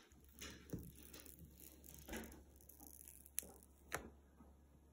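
Faint handling of iPhone 14 packaging: the paper cover and cardboard box rustle and scrape softly a few times, with two light ticks about half a second apart near the end.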